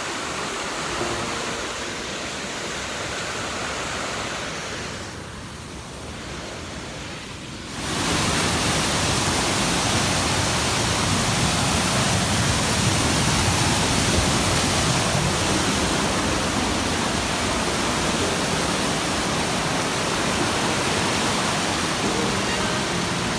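Rushing water of a multi-tiered waterfall, a steady roar of noise that dips briefly and then jumps louder about eight seconds in.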